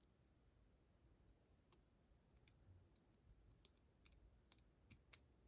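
Faint, scattered light clicks and taps of a small metal tool working against the parts of a disassembled pin-tumbler lock cylinder.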